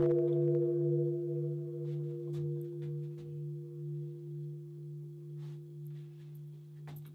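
Large bronze Japanese temple bell (bonshō), struck with a hanging wooden log, ringing on and slowly dying away, its deep hum pulsing gently in loudness.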